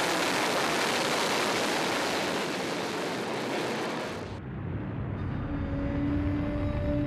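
Rocket launch: a loud, rushing engine roar that drops to a lower rumble about four seconds in. A steady, low held tone joins after about five seconds.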